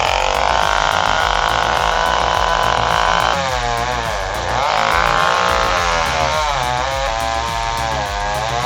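Chainsaw running at high revs: a steady high whine for about three seconds, then its pitch rising and falling repeatedly as it cuts.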